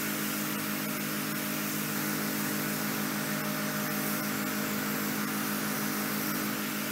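A motor running steadily: a constant droning hum of unchanging pitch with an even hiss over it.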